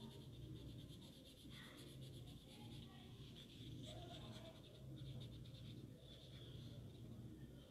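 Faint scratching of a green colouring pencil shading back and forth on drawing paper, over a steady low hum.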